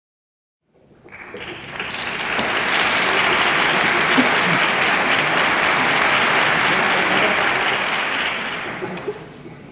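Audience applause in a concert hall, swelling up about a second in, holding steady, then dying away near the end as the conductor takes his place.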